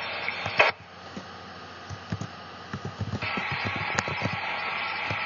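Police scanner radio static between transmissions. A steady hiss is cut by a short loud squelch burst about half a second in. A quieter stretch follows until about three seconds in, then the hiss comes back, with scattered low crackles and pops throughout.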